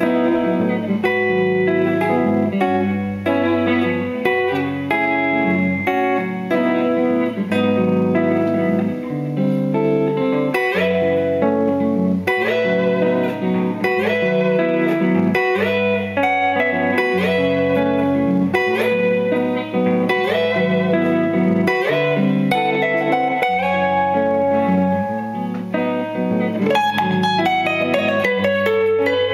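Solo hollow-body electric guitar with a low bass line and a plucked melody over it, layered with a Line 6 DL-4 looper.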